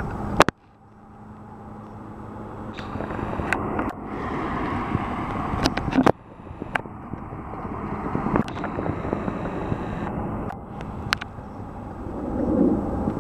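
Outdoor background noise with road traffic, broken by sharp clicks and sudden dropouts from the hand-held camera being moved about.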